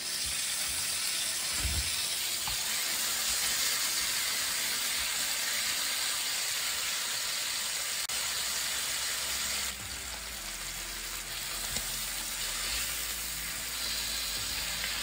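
Pork chops sizzling in hot olive oil in a frying pan, a steady hiss, with a short soft knock about two seconds in.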